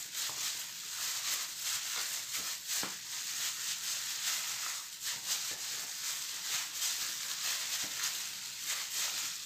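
Plastic-gloved hand kneading marinated chicken breast in a glass bowl: the thin plastic glove crinkling steadily along with wet squelching of the meat, and a few faint knocks.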